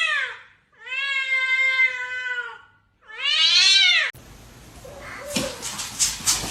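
A cat meowing three times: a falling meow that tails off, a long drawn-out one, then a shorter rising-and-falling one. About four seconds in the meowing stops, leaving faint knocks and clicks.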